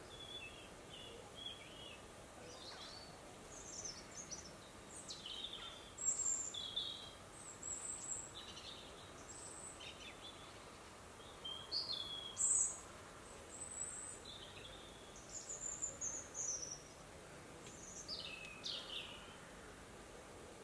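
Wild songbirds calling: a scattered series of short, high chirps and whistled notes over a faint steady background hiss, the sharpest and loudest about six seconds in and again about twelve seconds in.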